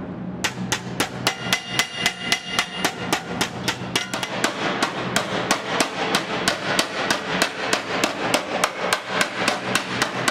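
Hammer beating sheet metal on a car body shell, regular strikes about three to four a second, some with a short metallic ring, over a steady low hum.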